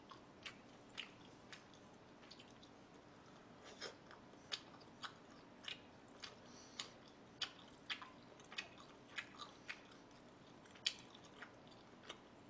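Close-miked chewing of barbecued meat: soft, wet mouth clicks and smacks about twice a second, with a short pause near the first third.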